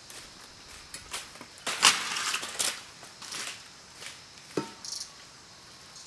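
Footsteps crunching through dry fallen leaf litter: irregular crunches, the loudest about two seconds in.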